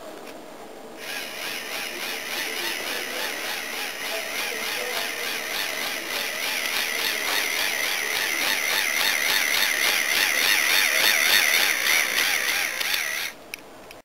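Motorized K'nex tank crawler running, its electric motor and plastic gears whirring with a fast, wavering rhythmic clatter. It starts about a second in, grows louder as it comes closer, and cuts off abruptly near the end.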